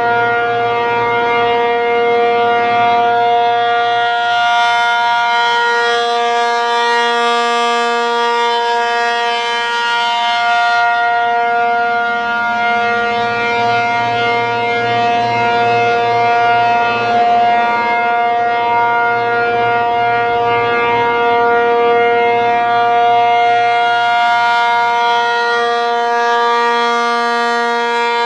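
American Signal T-135 outdoor warning siren on an RM-135 rotator, sounding a loud steady full-alert tone that holds its pitch. It swells and brightens as the turning horn faces toward the listener, about 4 to 11 seconds in and again near the end, and dulls as it turns away.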